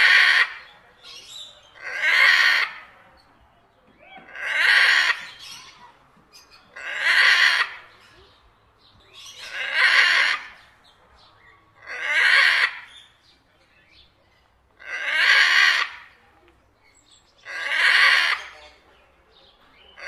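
Macaw giving loud, harsh calls, one about every two and a half seconds, eight in all.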